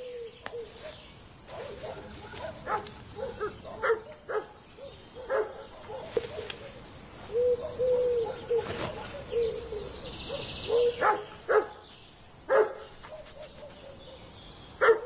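Young European hamsters calling with many short, yelping squeaks in irregular quick succession, a few of them drawn out a little longer.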